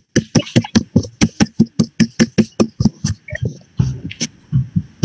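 A rapid, rhythmic run of sharp percussive hits, about six a second, that slows and stops about four seconds in.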